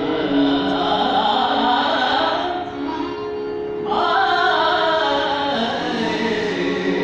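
Carnatic classical vocal music: a male singer's winding melodic line, shadowed by a bowed violin, over a steady drone. The phrase eases off briefly a little before halfway and comes back strongly at about four seconds.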